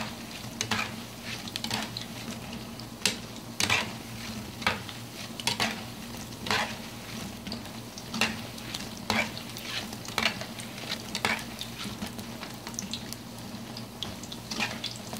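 Giamat dough balls deep-frying in hot oil, sizzling steadily, while a spoon stirs them, scraping and knocking against the metal pan about once a second.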